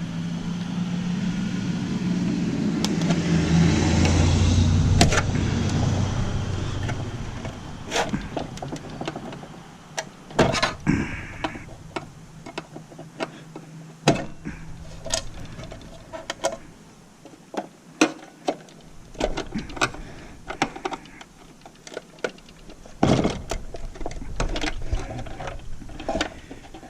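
A low motor hum swells over the first few seconds and fades away by about eight seconds in. After that come scattered clicks and knocks of small parts and hardware being handled while electronic equipment is taken apart.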